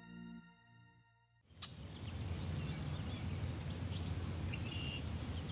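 The tail of soft ambient music fades out, and about a second and a half in an outdoor ambience cuts in: a low steady rumble with small birds chirping over it.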